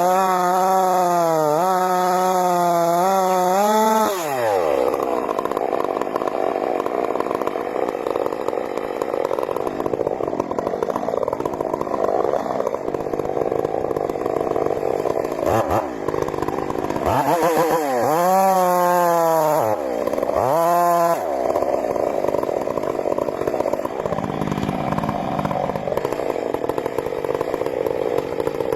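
Chainsaw engine running at high revs, then its pitch drops sharply about four seconds in as the chain bites into the wood, followed by a long stretch of loud cutting. Twice near the middle the engine note dips sharply and climbs back.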